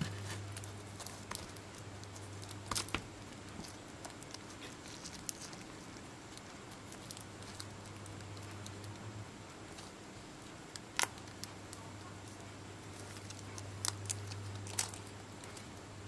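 Aluminium-laminate foil pouch of a lithium-polymer battery being folded and pressed by hand: scattered small crinkles and clicks, with a few sharper clicks, over a steady low hum.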